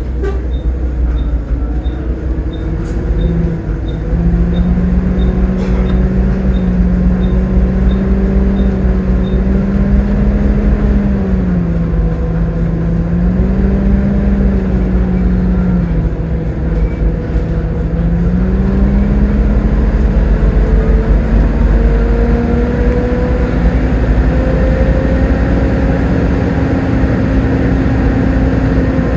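Volvo B7TL double-decker bus engine and drivetrain under way, with a deep rumble and a whine that rises and falls with speed, climbs slowly in the second half and drops away at the end. A light regular ticking, about two a second, runs through the first nine seconds or so.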